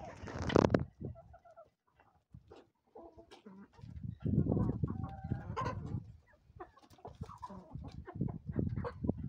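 A flock of laying hens, Leghorns and Lohmann Browns among them, clucking softly as they feed on scattered bulgur, with many small pecking taps. A loud burst of noise right at the start and low rumbling noise in between.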